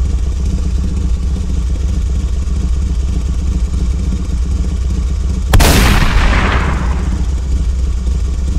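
Motorcycle engine running with a steady low rumble. About five and a half seconds in, a single sudden loud bang rings and fades out over a second or so.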